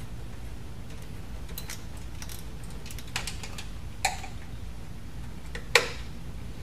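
A handful of light clicks and taps from a small screwdriver and plastic terminal-block connectors being seated and tightened, the loudest a sharp click near the end. A steady low hum runs underneath.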